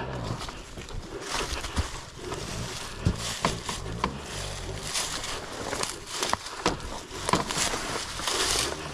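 Dirt bike moving slowly down a steep rocky slope thick with dry leaves: leaves crunching and scattered knocks of the tyres and bike on rocks.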